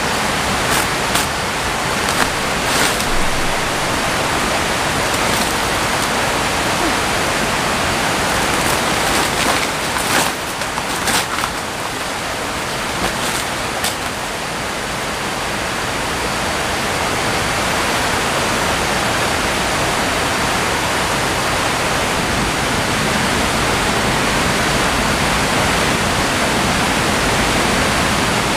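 A steady, loud rushing hiss like running water, with a few short crackling rustles in the first half as the plastic tarp and banana leaves are handled.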